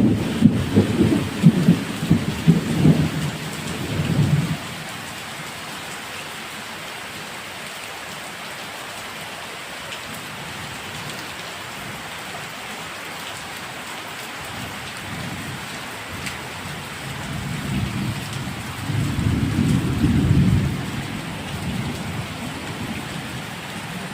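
Steady rain falling on a small garden, with two loud bouts of low rumbling: one over the first four seconds or so and another near the end.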